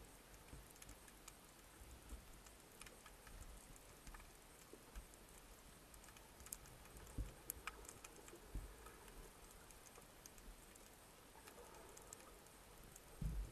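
Faint underwater ambience through a camera housing: irregular sharp clicks and crackles over a low hiss, with a few louder ticks about seven to nine seconds in and a low thump near the end.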